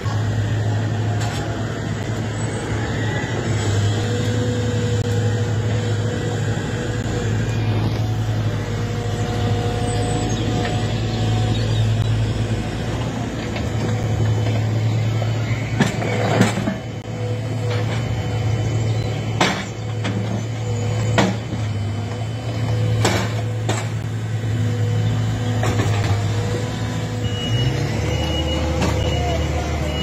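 Excavator diesel engines running steadily, with a few sharp knocks about halfway through and a reversing alarm beeping near the end.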